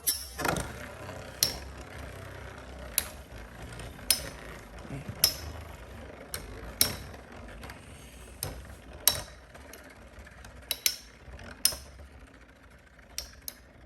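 Metal Fight Beyblade spinning tops, Storm Pegasus 105RF and Lightning L-Drago 100HF, whirring in a stadium and clashing in sharp clicks about once a second, irregularly.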